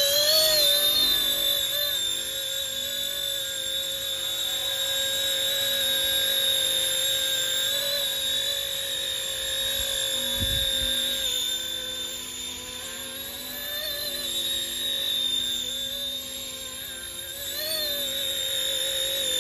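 RC ERA C190 Airbus H145 model helicopter's electric motors and rotors whining in flight: a steady high-pitched whine that wavers slightly in pitch as the throttle is worked.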